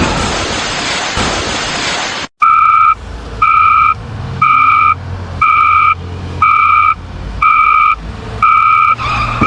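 A loud rushing noise for about two seconds, then an electronic warning beeper sounding about once a second, one steady pitch each time, over a low engine rumble.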